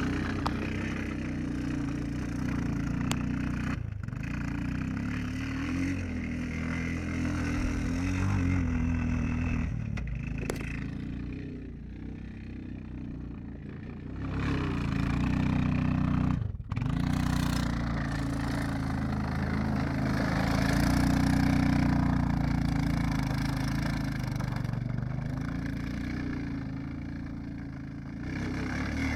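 Bashan 250cc ATV engine running and revving up and down as it is driven, with a rushing noise over it. There is a brief drop-out about halfway through.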